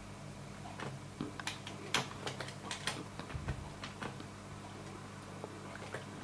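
Computer keyboard keys clicking as a command is typed: a quick irregular run of keystrokes for the first few seconds, then only a few, over a steady low hum.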